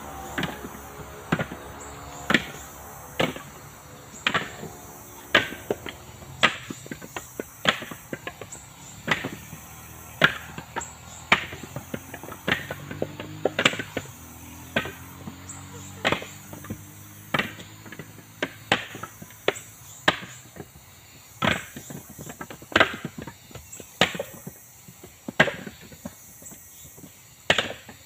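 Mature coconuts being husked by hand: a steady run of sharp chopping strikes, roughly one a second, as the tool bites into the fibrous husk.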